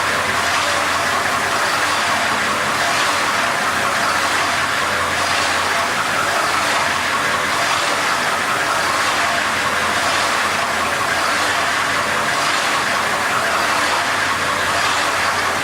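Spring end wet grinder running: a loud, steady mechanical noise that holds without a break.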